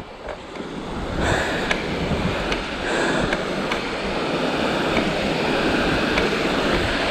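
Waterfall's rushing water, a steady noise that grows louder about a second in and then holds.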